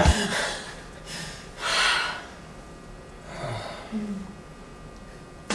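A person gasps once, a sharp breath in about two seconds in. A softer breath follows a second and a half later, with a brief low hum from the voice.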